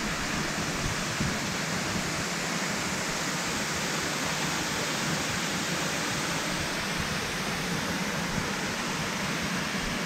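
Steady rush of flowing water, an even hiss with no breaks or single events.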